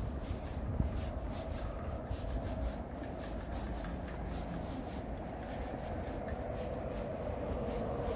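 Footsteps of someone walking, about two to three a second, over a steady low rumble; a vehicle's drone grows louder near the end.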